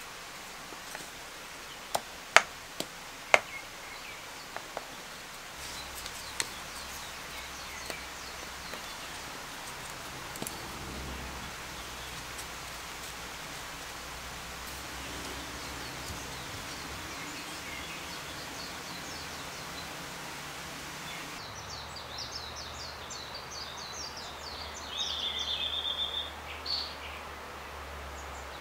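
Carved pine pieces knocking together with a few sharp wooden clicks in the first few seconds, then fainter taps, over steady forest ambience. In the last seconds a small bird sings a run of quick high chirps ending in a short trill.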